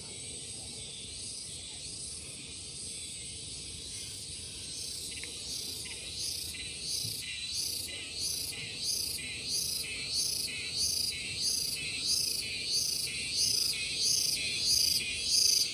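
Cicada calling: a steady high buzz that, about four seconds in, breaks into an even pulsing of about one and a half beats a second, growing louder.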